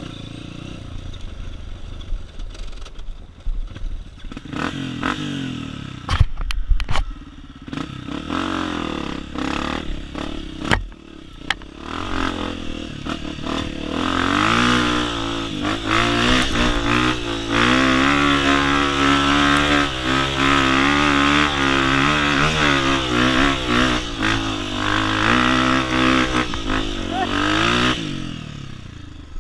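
Dirt bike engine revving, its pitch rising and falling, loud through the second half and dropping away near the end; a few sharp knocks come in the first half.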